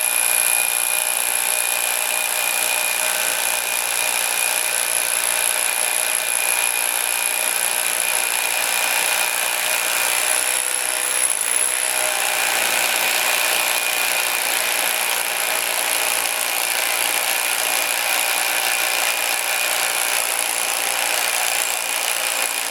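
Bosch PA66 hammer drill running without a break as it bores into concrete packed inside a steel pipe, a steady high whine over the grinding noise of the bit.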